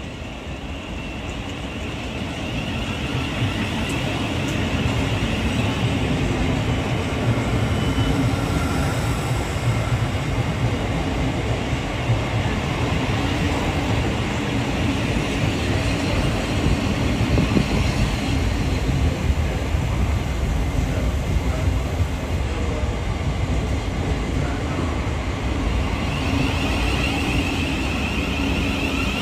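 Electric multiple-unit passenger train running along the platform. Its rumble builds over the first few seconds and then holds steady, with a wavering high whine at the start and again near the end.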